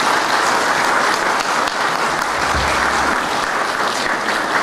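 Audience applauding, a steady continuous clapping.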